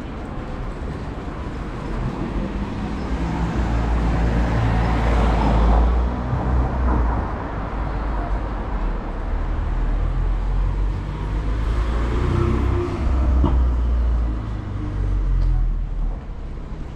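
City road traffic: cars passing along the street beside the pavement, the rumble of tyres and engines swelling and fading twice, about five seconds in and again about twelve seconds in.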